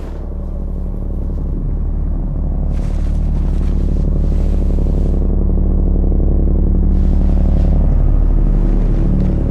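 A deep, sustained bass tone played through a car's audio system, with strong overtones, swelling steadily louder.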